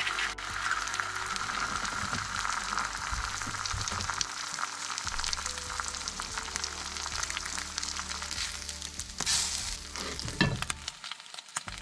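Food frying and sizzling in a pan, with a sharp clatter near the end.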